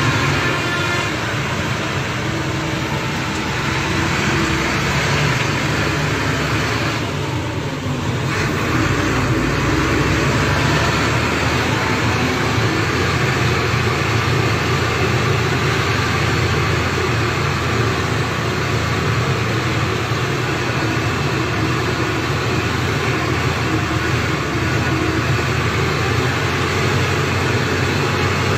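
Engine and road noise of a moving bus heard from inside its cab: a steady low engine drone under an even rumble.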